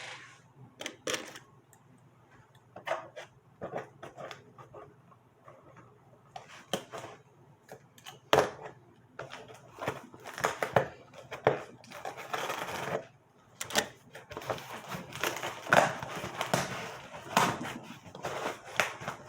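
Cardboard shipping box being cut open with a box cutter and handled: scattered clicks and short scrapes, sparse at first and busier from about ten seconds in.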